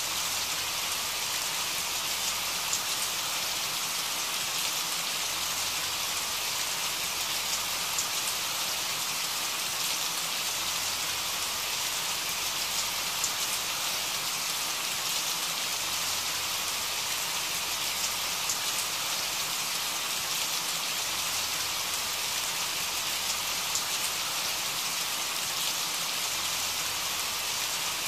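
Steady rain falling: an even, unbroken hiss with faint scattered patter.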